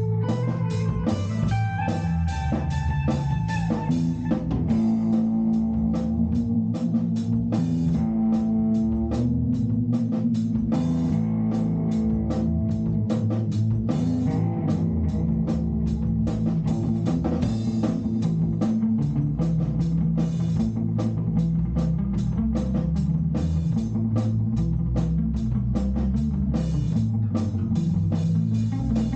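Band playing an instrumental passage: guitar and bass over drums keeping a steady beat, with a run of guitar notes in the first few seconds.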